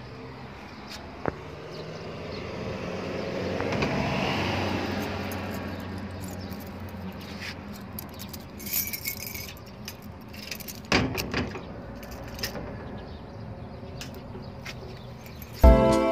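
A car passes on the street, its sound swelling and fading over a few seconds. Then metallic rattles and clicks, like keys and a metal gate being handled.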